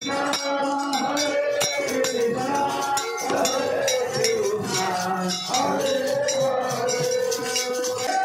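Devotional kirtan music: voices singing a chant over a dholak drum, with jingling hand cymbals keeping the beat.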